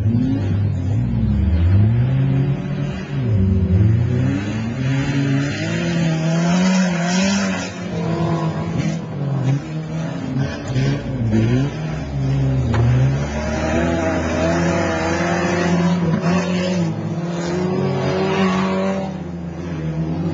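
Car engines racing hard on a dirt course, revving up and dropping again and again as the cars accelerate, lift and turn.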